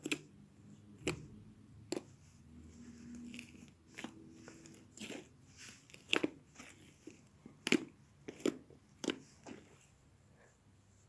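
Slime being squeezed and kneaded by hand, making irregular sharp pops and crackles with softer squishing between them, dying away near the end.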